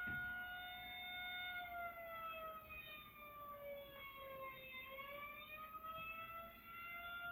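Tornado warning siren heard in playback from a video: one sustained tone with overtones, steady at first, then sagging lower in pitch from about a second and a half in, lowest near the middle, and climbing back to its first pitch near the end.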